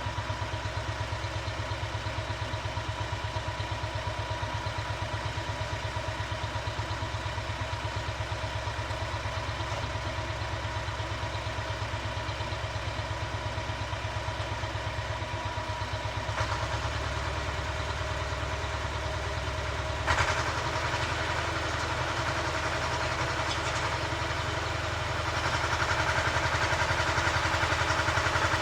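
Engine of a walk-behind rotary tiller running steadily while tilling soil, with a sharp knock about 20 seconds in and the engine note growing louder near the end.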